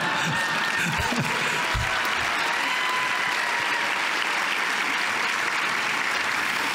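Theatre audience applauding steadily in response to the speaker's remark.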